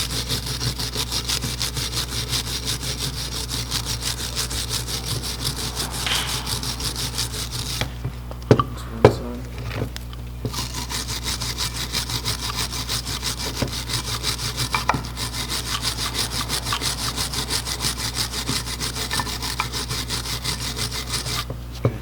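Hand wire brush scrubbing the edges of a brake caliper bracket in rapid back-and-forth strokes, clearing rust and dirt where the new pad hardware seats. The scrubbing stops briefly about a third of the way in, with two sharp metal knocks, then goes on.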